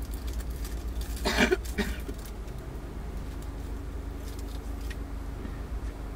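Car engine running, heard from inside the cabin as a steady low hum, with a brief louder noise about a second and a half in and a few faint clicks later on.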